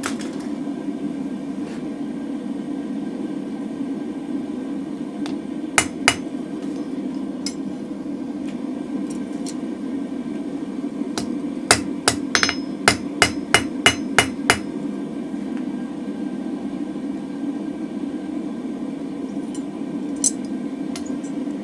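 Hand hammer striking hot mild steel on an anvil to straighten a drift: a pair of ringing blows, then a quick run of about eight, then a single one near the end. A steady low rushing hum runs underneath.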